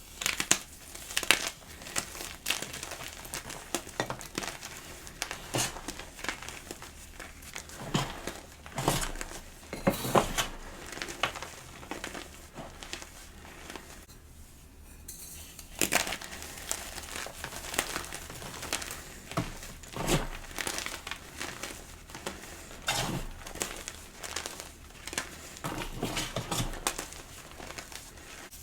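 Gym chalk being crushed and crumbled close up, a dense run of irregular crisp crunches and crackles with a brief lull about halfway through.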